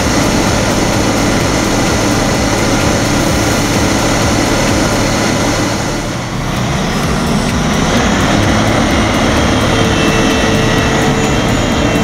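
Claas Lexion combine harvester at work in corn, its engine and threshing machinery making a steady loud drone that dips briefly about halfway through.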